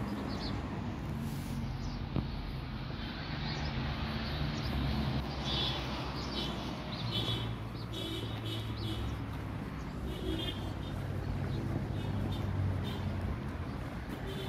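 Outdoor street background: a steady hum of traffic, with birds chirping now and then through the middle.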